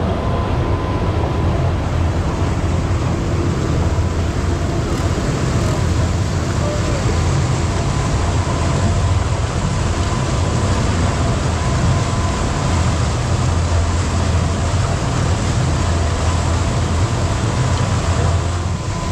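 Speedboat under way: a steady drone from its engines over the rush of water from the wake.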